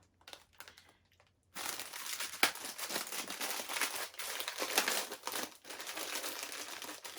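Cookie packet being opened and handled, with the wrapper crinkling steadily after about a second and a half of quiet.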